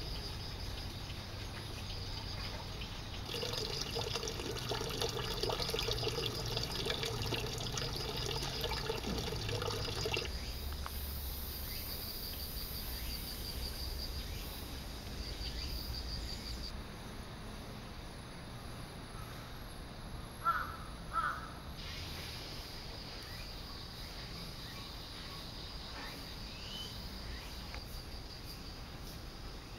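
Outdoor ambience with a steady high buzz. A crow caws twice in quick succession about two-thirds of the way through.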